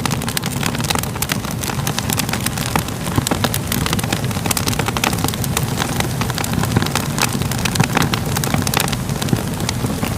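Crackling fire: a dense, irregular stream of small pops and crackles over a low, steady rumble.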